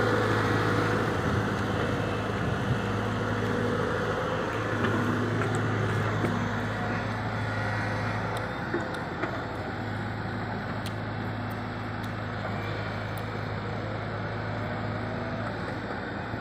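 JCB wheeled excavator's diesel engine running steadily with a deep hum, fading gradually as the machine moves away.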